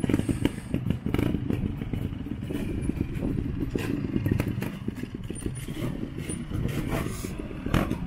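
Trials motorcycle engine running with short, uneven throttle blips, mixed with a few sharp knocks and clatter.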